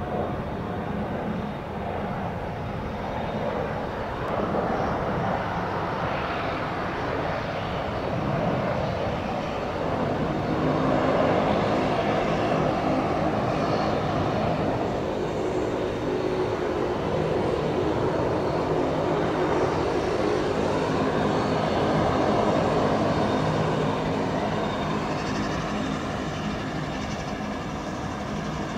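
Aircraft engines running on an airport apron: a steady whine and rumble that swells through the middle. Near the end a Dash 8's turboprop engines draw closer as it taxis in, with several tones gliding in pitch.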